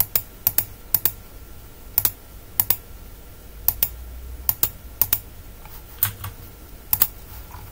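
Sharp clicking at a computer as items are clicked through in the software: about a dozen clicks spread over the seconds, many coming in quick pairs about a tenth of a second apart, over a faint steady high-pitched tone.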